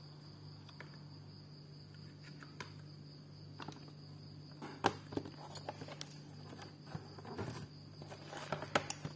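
Scattered light clicks and knocks of a laptop being handled on a table, over a steady low hum and a thin high tone.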